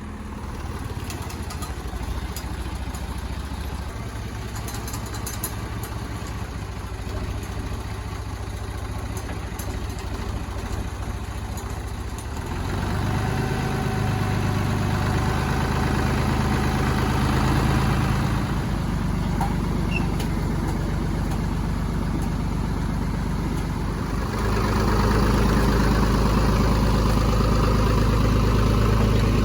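Tractor engine running steadily, getting louder about twelve seconds in and again near the end.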